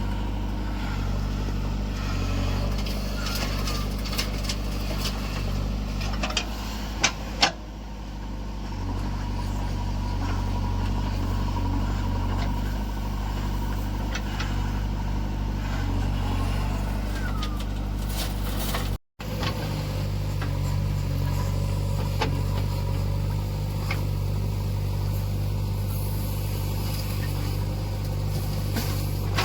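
Diesel engine of a JCB 3DX backhoe loader running steadily while it digs and loads mud, with two sharp knocks about seven seconds in.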